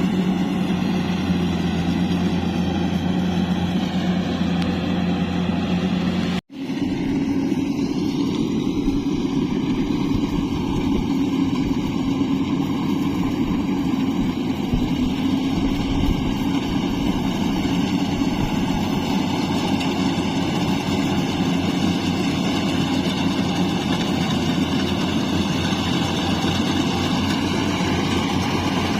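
Yanmar AW70V combine harvester running steadily at high throttle. The sound cuts out briefly about six and a half seconds in, then the machine carries on at a slightly changed pitch.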